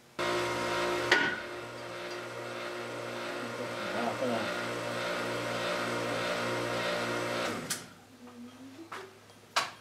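Hydraulic shop press's pump motor running steadily while the ram presses on the eye bearing of an excavator boom cylinder, starting abruptly and cutting off near the end. A sharp knock about a second in, and another just before the end.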